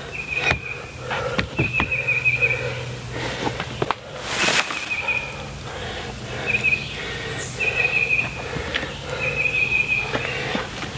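Footsteps on the forest floor and wooden logs being handled and set into a stacked-log wall, with scattered knocks and a loud rustling clatter about four and a half seconds in. A bird repeats a short trill every second or two throughout.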